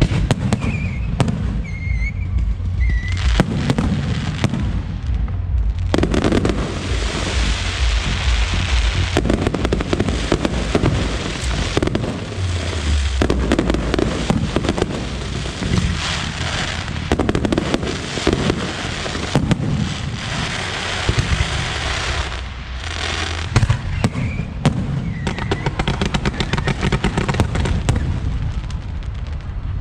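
Aerial fireworks show: dense crackling and popping over deep booms from shell bursts, with a few short whistles near the start and again late on.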